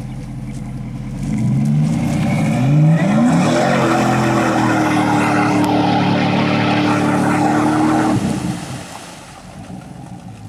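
Lifted Chevrolet Silverado Z71 pickup's engine revving hard as the truck pushes through shallow pond water over clay, its tyres spinning and throwing spray. The revs climb steeply from a low idle about two seconds in, hold high for several seconds, then drop off suddenly about eight seconds in.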